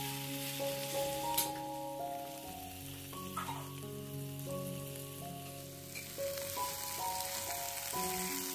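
Marinated chicken pieces sizzling as they fry in a nonstick pan, the marinade's liquid cooking off, with one sharp click about a second and a half in. Background music of held notes plays over it.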